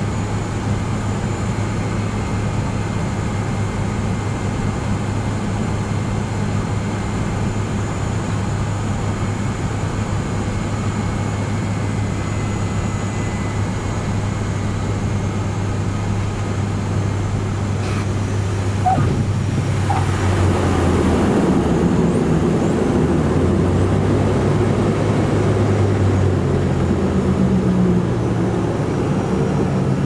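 Cabin sound of a de Havilland Canada Twin Otter DHC-6-300's Pratt & Whitney PT6A turboprop engines and propellers, a steady drone on the approach. A single sharp click comes just before the touchdown roll, and about twenty seconds in, on the landing roll, the drone grows louder and rougher with a shifting pitch.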